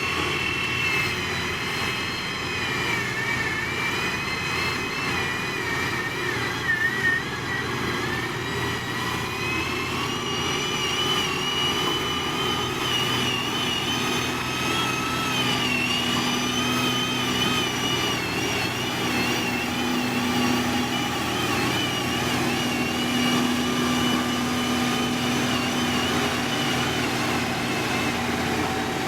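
Heavy road-construction machinery engine running steadily, with a high whine that wavers up and down in pitch over a low hum.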